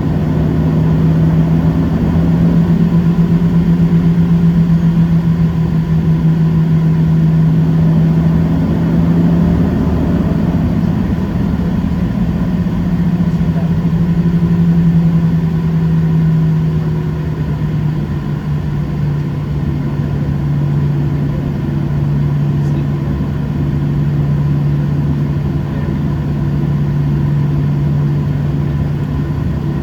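Steady cabin noise of a Boeing 737-700 with its CFM56 engines at low power on the ground: a low steady hum over a rush of noise. The hum drops slightly in pitch a little past halfway.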